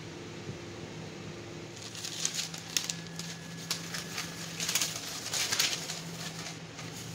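A sheet of baking paper crinkling and rustling as hands spread and smooth it, in irregular crisp bursts that start about two seconds in and die away near the end.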